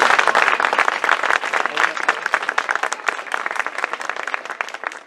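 Audience applauding at the end of a choir song, the clapping dense at first and dying down toward the end.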